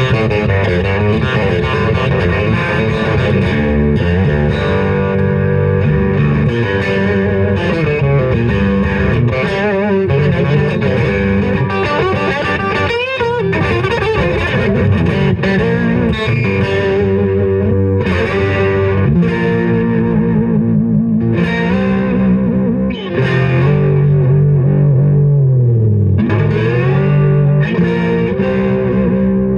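Electric guitar fitted with a Guyker tremolo bridge, played through distortion: continuous riffs and chords with the pitch bent and wavered. Near the end the notes dip down and come back up, a tremolo-arm dive that tests whether the bridge returns to pitch.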